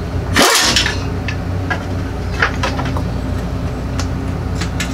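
Farm haying equipment running steadily next door, a low, even engine drone. Light metallic clicks of hand tools on an exhaust manifold come through it now and then.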